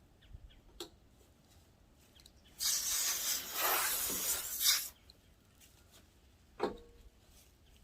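A steady hiss lasting a little over two seconds, starting about two and a half seconds in, from wet-sanding a foggy plastic headlight lens with 2000-grit paper. A couple of faint knocks come before and after it.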